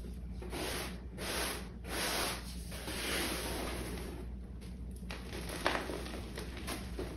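Hands crushing and rubbing soft dyed gym chalk, a powdery crunch and rustle in a series of swishes, each under a second long, with one sharper crackle about two-thirds of the way through.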